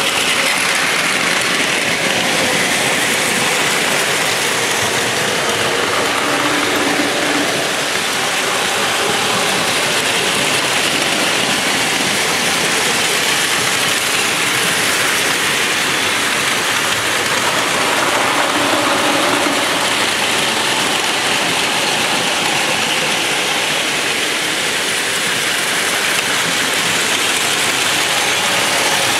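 Several Plarail battery-powered toy Shinkansen trains running at once on plastic track, a steady, dense mechanical clatter of their small geared motors and wheels.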